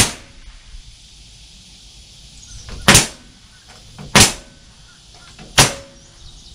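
A nail gun firing four times at uneven intervals of one to three seconds, each a sharp crack that dies away quickly, driving nails into a wooden rafter cap piece.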